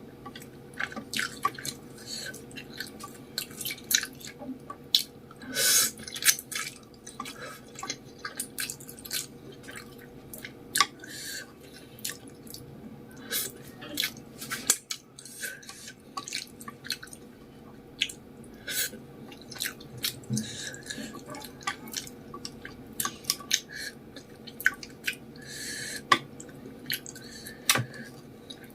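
Close-miked chewing of spicy Samyang noodles with fish balls and vegetables: irregular wet mouth clicks and smacks, with a couple of longer wet sounds about six seconds in and near the end.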